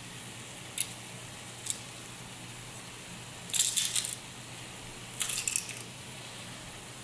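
Handheld metal garlic press being squeezed on garlic cloves, its hinge and handles giving short metallic clicks and rattles. There are two single clicks early on, then two longer clattering clusters past the middle.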